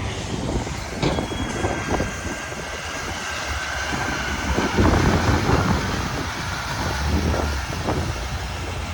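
Semi truck driving past at low speed: diesel engine running with a low rumble that swells about halfway through, a thin steady high whine and some rattling.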